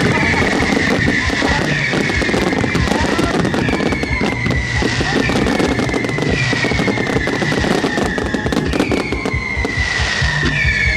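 Fireworks crackling and popping as low mines and fountains throw out crackling stars. A high whistle slides gently down in pitch and repeats about every one and a half seconds, over music with a steady low beat.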